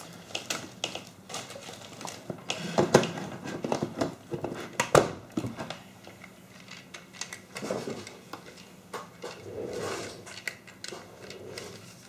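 Scattered clicks, knocks and rustles of things being handled off to the side of a workbench, with a sharp knock about five seconds in.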